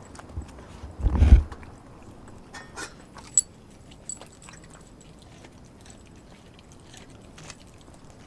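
Dog eating raw meat: a short loud burst about a second in, then a few scattered sharp clicks and quiet stretches as it noses at the pieces.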